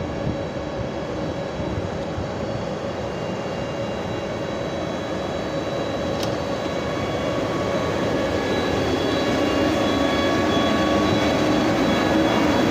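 Czech Railways class 151 electric locomotive moving slowly past at the head of a passenger train, its motors and cooling fans giving a steady whine with several held tones that grows louder. A single short click about six seconds in.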